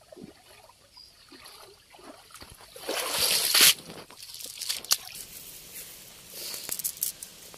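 Water sloshing and splashing as a wet cast net is hauled out of a shallow pond onto the muddy bank, with a loud burst of splashing about three seconds in. Fainter dripping and squelching follow as the net lies on the mud.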